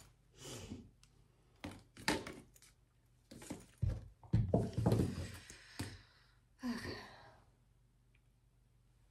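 Toiletries being packed into a mesh bag: rustling and a scatter of knocks and thunks as items are handled and dropped in, ending about seven and a half seconds in.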